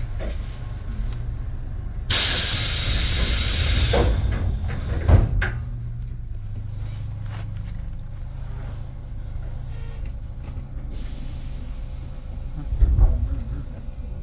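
Compressed air hissing from a Tobu 8000-series train's pneumatic system: one loud hiss of about two seconds, then a sharp thump about a second later, over a steady low hum. A fainter hiss and a low thump come near the end.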